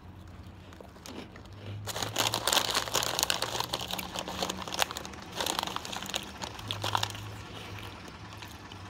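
Crunchy puffed snack being chewed close to the microphone: a run of crackling crunches starting about two seconds in and fading near the end.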